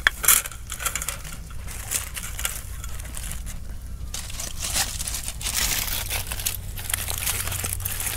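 Baking parchment and aluminium foil crinkling and rustling in irregular bursts as hands open foil-wrapped parchment parcels.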